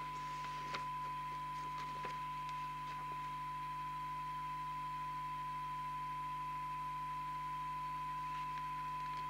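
Steady 1 kHz test tone from the Fidelity 3000 FM CB base station's loudspeaker: the signal generator's modulation tone, demodulated by the receiver under alignment. A low steady hum lies beneath, with a few faint paper rustles in the first few seconds.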